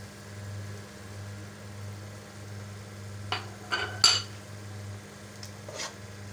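A few sharp clinks of a glass spice bowl and steel spoon against a steel cooking pot as ground spices are added, the loudest about four seconds in, over a steady low hum.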